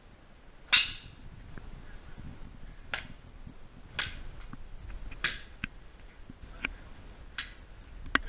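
Golf clubs striking balls on a driving range: about seven sharp cracks at uneven intervals of roughly one to two seconds, the first the loudest, from several golfers hitting in turn. A low rumble runs underneath.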